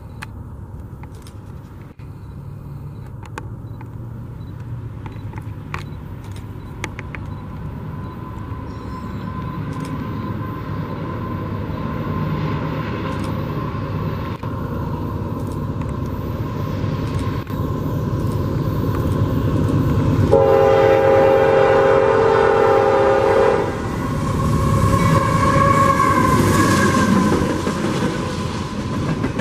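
A CSX diesel freight locomotive approaching, its rumble growing steadily louder. Its air horn sounds one chord of about three seconds some twenty seconds in, just before the locomotive passes. Then a high wavering tone as it goes by, and the rumble of double-stack container cars rolling past on the rails.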